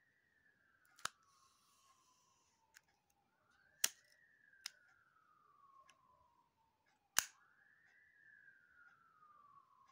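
A few sharp metallic clicks from an aluminium Carl Zeiss Jena Biotar lens barrel as it is handled and its rings are turned. Behind them a faint siren wails, rising quickly and falling slowly about every four seconds.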